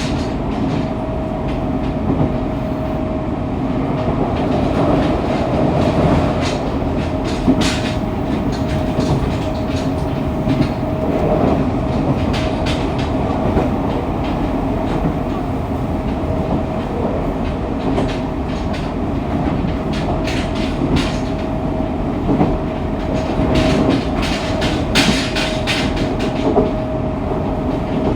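Fukuoka City Subway 2000-series electric train heard from the car floor while running between stations: a steady rumble with a constant whine, and wheels clicking over rail joints now and then, in clusters near the middle and towards the end.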